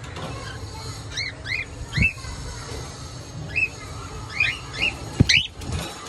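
Cockatiels chirping: about ten short, rising calls in quick runs of two or three. Two dull thumps cut in, one about two seconds in and a louder one near the end.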